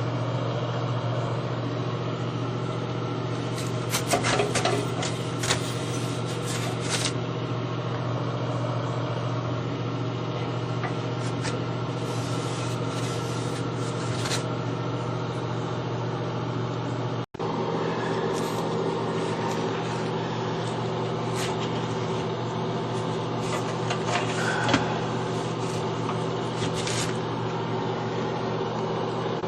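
An electric motor humming steadily, with scattered scraping and ticking noises over it. The hum drops out for an instant about midway, then resumes.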